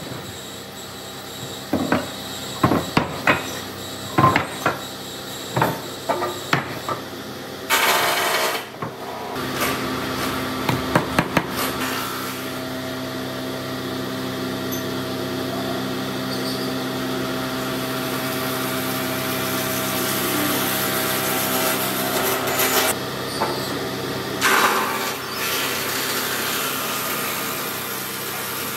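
Pine boards knocking against each other and the workbench as they are unstacked and laid side by side: a quick series of sharp wooden knocks, then a scraping slide about eight seconds in. After that a steady background hum, with a few lighter scrapes on the wood.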